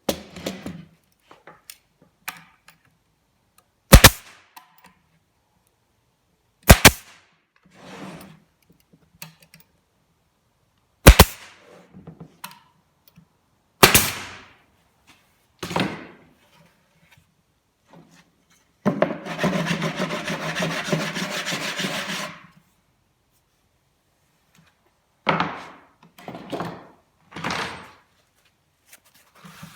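A staple gun firing four sharp shots a few seconds apart, fastening melamine cabinet panels together, with lighter knocks between them. About two-thirds of the way through, a rough rasping sound lasts about three seconds.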